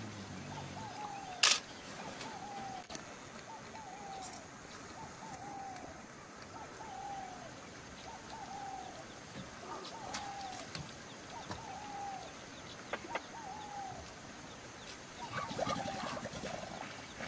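A bird repeating one short arched call note about once a second, very evenly, over faint bush ambience. A sharp click comes about a second and a half in, and a short burst of higher chirps and clicks near the end.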